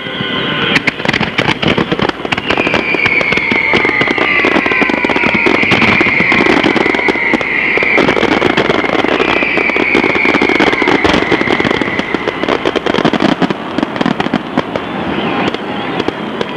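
Aerial fireworks bursting in rapid succession, a dense run of crackling pops and bangs. A long high whistle drifts slowly down in pitch through the middle.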